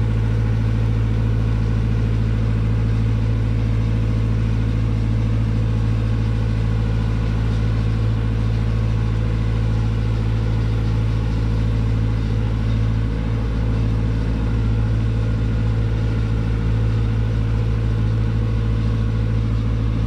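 Engine of road-paving machinery running at a steady speed, an even low drone. A low regular throbbing joins in during the last few seconds.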